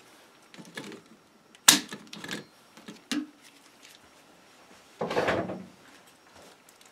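Scattered handling noises: a sharp click a little under two seconds in, a couple of softer knocks after it, and a longer scraping rustle about five seconds in.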